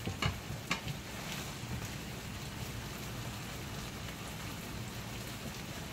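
Thick, reduced ketchup sauce bubbling and sizzling steadily in a pan around simmered chicken drumsticks, with a couple of light knocks from the silicone spatula in the first second.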